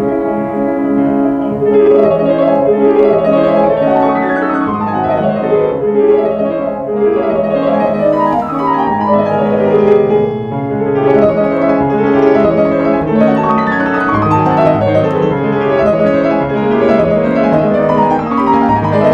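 Yamaha CFX concert grand piano played at speed: rapid runs of notes sweeping up and down the keyboard without a break.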